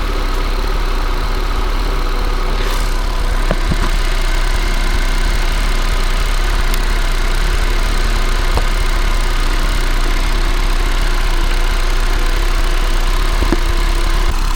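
Car engine idling steadily, running as the donor car for a jump start, with a few faint clicks.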